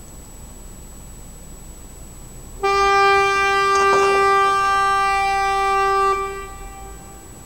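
Quarry blasting warning horn sounding one long steady blast of about three and a half seconds, starting abruptly and dying away briefly after it stops.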